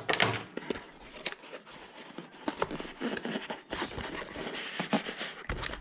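Cardboard product box handled and its contents slid out: rustling and scraping of cardboard with many small clicks and taps.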